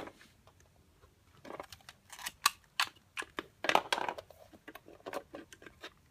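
Plastic clicks and knocks of a flashlight's wall charger being handled while its interchangeable plug adapters are swapped and it is set down on a wooden table: one sharp click at the start, then a scattered run of lighter clicks with short gaps between.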